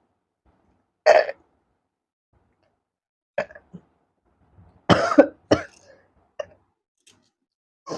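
A woman's short throaty burps, brought up by gulping fizzy Coke: a string of brief separate bursts, the loudest about a second in and about five seconds in.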